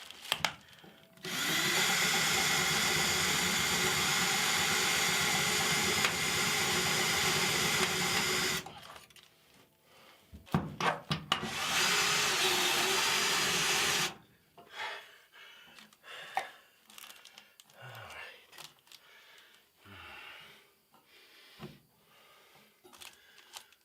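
Power drill running steadily for about seven seconds, stopping, then running again for about two and a half seconds, driving screws to anchor electrical conduit to the wall. Scattered clicks and handling noises follow.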